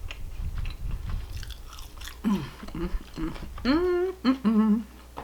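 A person chewing a mouthful of food with soft wet mouth clicks. From about two seconds in come several short hummed vocal sounds.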